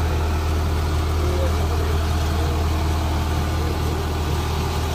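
Kubota combine harvester's diesel engine idling with a steady, even low hum.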